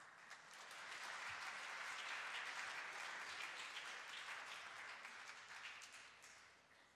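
Audience applauding: the clapping swells over about the first second, holds steady, then fades away near the end.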